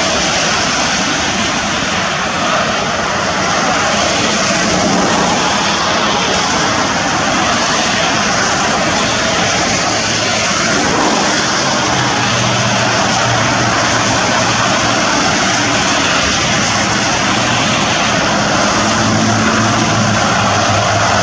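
Steady roar of freeway traffic, tyres on wet pavement. A low engine hum joins it about halfway through.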